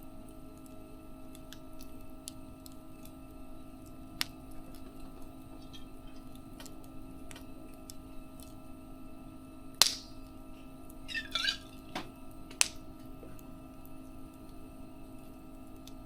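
Wood fire crackling with scattered small ticks and pops, with two sharp loud pops about ten and twelve and a half seconds in, over a steady hum.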